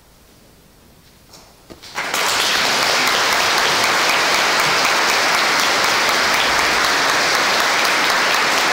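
A short hush, then audience applause breaks out about two seconds in and goes on steadily.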